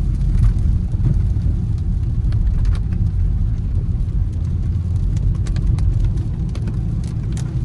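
Steady low road-and-engine rumble heard inside the cabin of a Range Rover Sport SVR driving in the rain, with scattered light ticks of raindrops hitting the windshield that come thicker near the end.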